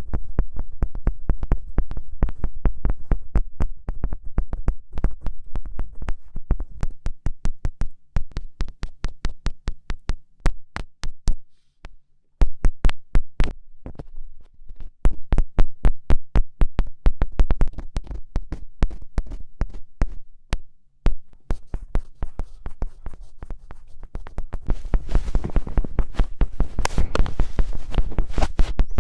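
Rapid fingertip taps and pokes right on the microphone, several a second, each a short thump with a heavy low end. They stop for a moment about twelve seconds in, and a faint rubbing hiss joins them near the end.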